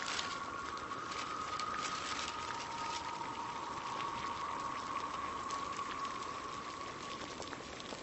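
Steady crackling hiss, dense with fine ticks, with a faint high tone held underneath.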